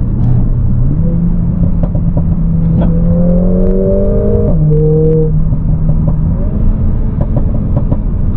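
Mercedes-AMG A45 S's turbocharged four-cylinder with a modified exhaust, heard from inside the cabin under hard acceleration. The engine note climbs, drops suddenly about halfway through as it shifts up a gear, then climbs again near the end.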